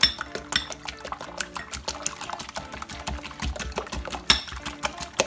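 Wire whisk beating eggs in a glass bowl: rapid, irregular clicking and tapping of the wires against the glass, over background music.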